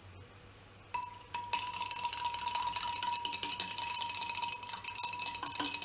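Stirring liquid in a beaker: a small spoon clinking and scraping rapidly against the sides, starting about a second in, with a faint steady tone underneath.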